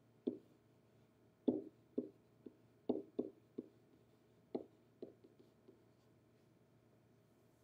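A pen tapping and knocking against the hard surface of an interactive whiteboard as a word is written on it: about a dozen short, irregular taps that stop about six seconds in.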